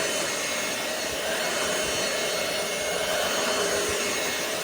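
Roomie Tec SlimVac cordless stick vacuum running steadily while vacuuming up debris: an even rush of air with a steady motor hum and high tones over it.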